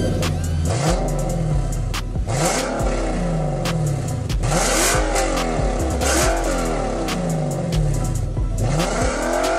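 Infiniti M56's 5.6-litre V8 being free-revved at standstill through a modified exhaust: about five blips of the throttle, the pitch rising and dropping back to idle each time.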